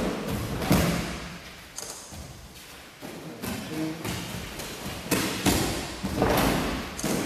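Bare feet thudding onto judo tatami mats as judoka vault over partners bent forward in a line: a few heavy landings about a second in, and a cluster of thuds between about five and six and a half seconds in.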